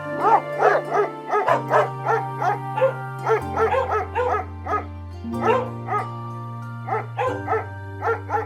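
A dog barking repeatedly in short, high-pitched barks, about two a second with brief pauses. Background music with slow, sustained chords plays underneath.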